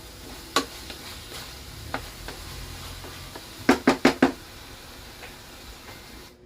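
A kitchen utensil knocking on cookware during soup-making: single knocks about half a second in and near two seconds, then a quick run of four louder knocks a little past the middle, over a steady faint sizzle.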